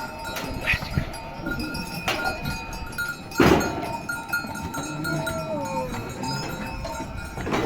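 Sheep flock's bells clinking and ringing, with a few sharp knocks, the loudest about three and a half seconds in, and an animal call a little past the middle.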